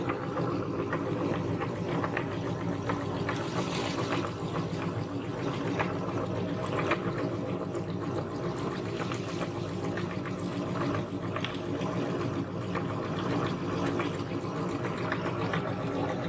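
Large metal meat grinder running steadily, grinding soft cookies: a continuous mechanical hum with a light crackle as the crumbs are pressed out through the grinding plate.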